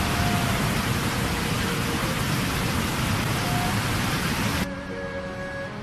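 Niagara's American Falls: a loud, steady rush of rapids pouring over the brink. About four and a half seconds in it cuts off suddenly, leaving a quieter, more distant rush of falling water.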